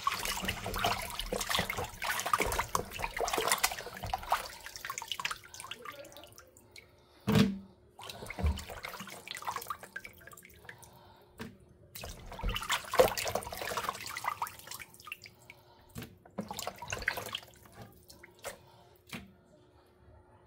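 Water sloshing and splashing in a plastic bowl in a sink as raw chicken feet are rubbed and rinsed by hand, in two busy spells with quieter dripping between, and a few sharp knocks, the loudest about seven seconds in.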